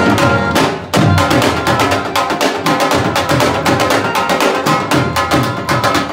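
Live qawwali-style accompaniment: dhol and tabla drumming a fast, dense rhythm with a harmonium's held tones faintly underneath. The drumming breaks off briefly about a second in, then picks up again.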